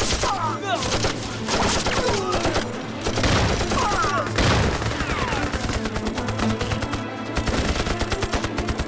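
Heavy machine-gun fire in rapid, sustained bursts mixed with rifle shots: film battle sound effects.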